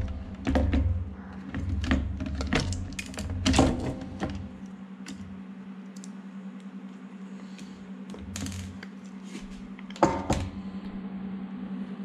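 Handling of an opened RC radio transmitter's plastic case and battery: sharp plastic clicks and knocks, many in quick succession during the first four seconds, a few scattered ones later and a louder knock about ten seconds in, over a steady low hum.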